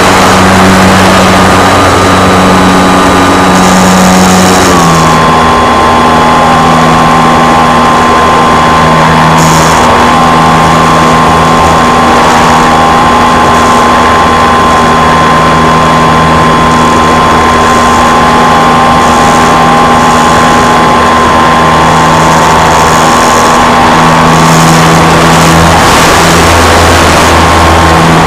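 Motor and propeller of a radio-controlled model aircraft running steadily at close range, a loud drone with a high whine, dropping slightly in pitch about five seconds in.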